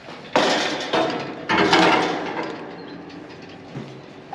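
Metal valve end of a propane transfer hose clanking and scraping against a galvanized steel railing as the hose is hung up: two loud metallic knocks with a short ringing scrape after each, the second about a second after the first.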